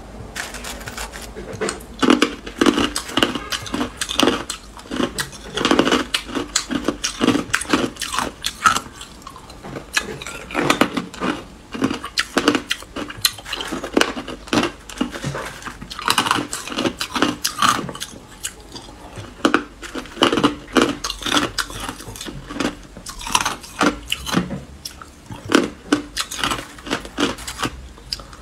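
A person chewing hard clear ice: a dense, uneven run of crisp crunching cracks, several a second.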